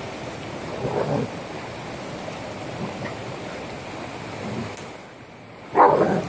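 German shepherd and a raccoon play-fighting, with short rough bursts of scuffling and growl-like noise from the tussle: one about a second in and a louder one near the end as they grapple. A steady rushing noise runs underneath.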